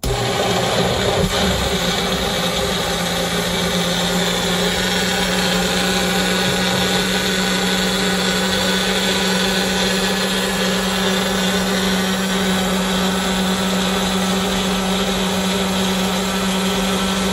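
Single-serve personal blender running at full speed, blending a smoothie. The motor makes a loud, steady whine over a constant hum, switched on abruptly at the start.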